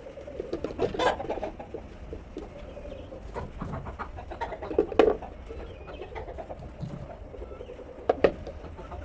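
Hens clucking in a chicken house, with a few sharp knocks or clatters about a second in, halfway through and near the end.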